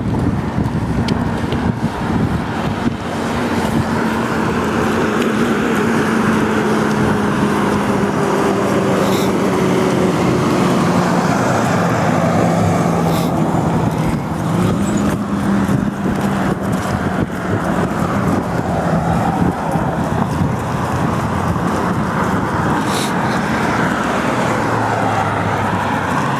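Road traffic on a city street: motor vehicles running past, with a steady low engine drone that slides slowly down in pitch.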